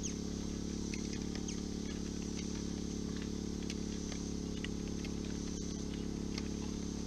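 Steady outdoor background of an evening insect chorus, a high even buzz, over a low steady hum, with a few faint ticks scattered through.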